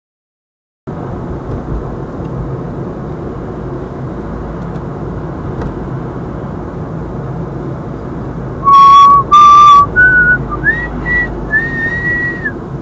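Steady cabin noise of a car driving. About nine seconds in, a person whistles a short run of notes that climbs in pitch, with slides between the notes. The first two notes are loud and sharp.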